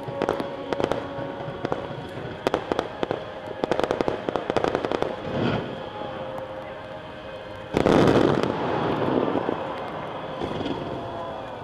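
Fireworks exploding: rapid crackling and popping bangs, then a louder, longer burst about eight seconds in that fades into a rumbling haze.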